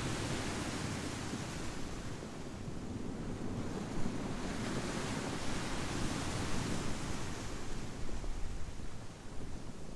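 Pacific Ocean surf washing in and out over a beach of smooth volcanic boulders and pebbles, with wind. The wash eases about two seconds in, builds again from about three seconds, and falls away near the end.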